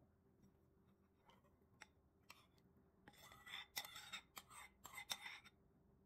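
Faint kitchen handling sounds: a few light clicks, then a couple of seconds of scraping and clicking about halfway in.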